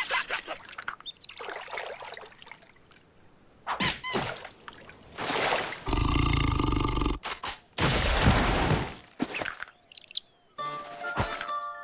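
Cartoon sound effects: short squeaky warbling chirps, then two long, loud whooshes in the middle, the first with a deep rumble. About ten seconds in come more squeaky chirps, then light music with plucked notes.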